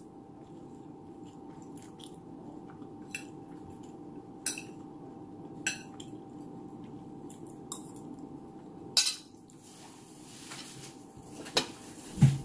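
Metal fork clicking and scraping against a plate every second or two while eating, over a steady low hum. Near the end comes a sharp knock and then a loud low thump as a chair is moved.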